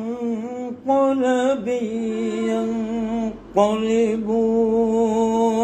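A man's voice chanting in long, held melodic notes: four drawn-out phrases with short breaths between, the last held for about two seconds.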